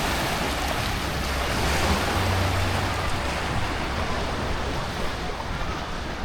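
Steady rush of moving, splashing water, an even noise with no breaks.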